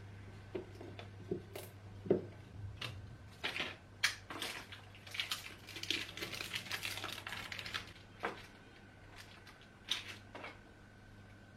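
Screws and small hard parts being handled and dropped into a small storage box: scattered clicks and knocks, with a denser rattling stretch in the middle, over a low steady hum.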